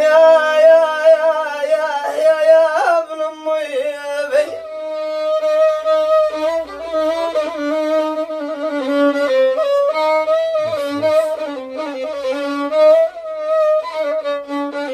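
Violin playing a slow melody with wavering vibrato and slides, over a steady lower note held underneath throughout.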